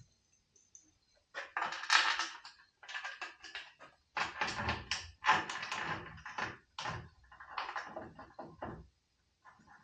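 Knocking and clattering of parts being handled and test-fitted, a run of short irregular bursts starting about a second in and stopping near the end.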